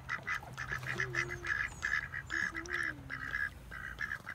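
Ducks calling close by: a rapid series of short quacks, thickest in the middle and thinning out near the end.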